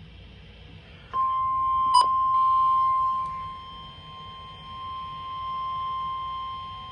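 NOAA Weather Radio 1050 Hz warning alarm tone: one steady high-pitched tone that comes on about a second in and wavers in volume, over faint radio static, with a click about two seconds in. The tone signals that a warning is about to be broadcast.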